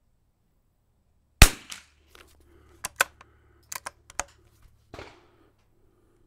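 A single shot from an Anschutz 54 Sporter bolt-action .22 LR rifle about a second and a half in, the loudest sound, with a short ringing tail. It is followed by several quick metallic clicks, the bolt being worked to eject the case and chamber the next round.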